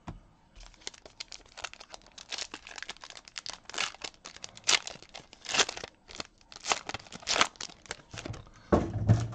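Foil wrapper of a Donruss Optic baseball card pack being torn open and crinkled by hand, an irregular run of crackles and rips.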